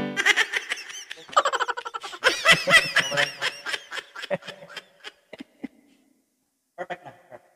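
A person laughing in a run of short, quick bursts that trail off about five seconds in, with a few faint ones near the end.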